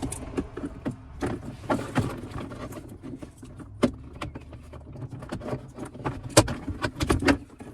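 Plastic interior trim and a wiring harness being handled and fed through a console opening: scattered clicks, knocks and rustling, with one sharp knock about six and a half seconds in.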